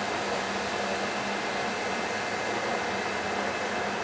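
Trenitalia E 464 electric locomotive standing at the platform, its on-board equipment running with a steady whir and a constant low hum.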